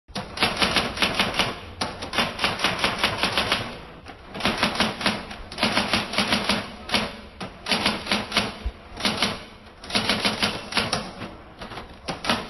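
Fast typing: sharp key clicks at about seven a second, in runs of one to two seconds with brief pauses between, starting and stopping suddenly.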